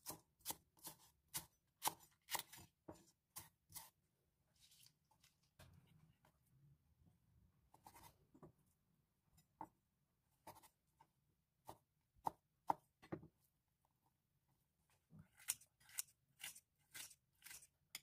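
Kitchen knife chopping green onions and slicing ham on a wooden cutting board, a series of sharp knocks, quick at first and then spaced out. Near the end comes a fast run of scissor snips cutting kimchi in a bowl.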